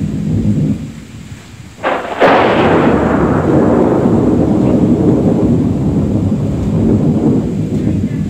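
Thunder: a sharp crack about two seconds in, followed by a long rolling rumble that slowly fades.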